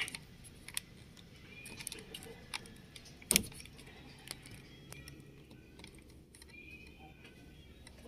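Light plastic clicks and rattles from a truck's power window switch panel and its wiring connector being handled, with one sharp, louder click a little past three seconds in.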